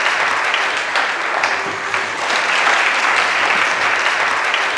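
A hall of school students applauding, a steady, dense clapping that goes on through the pause in the speech.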